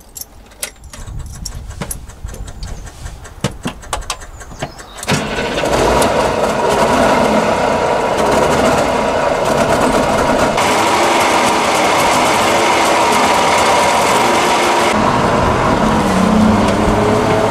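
DKW Munga's one-litre three-cylinder two-stroke engine starting cold: a few seconds of scattered clicks and knocks, then about five seconds in it catches and runs on steadily and loudly.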